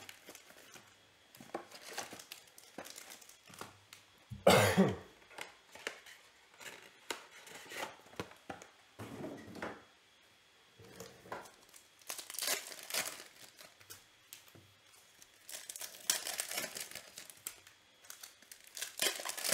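Foil trading-card packs crinkling and rustling in short scattered bursts as they are handled and stacked, with some tearing. One cough about four and a half seconds in is the loudest sound.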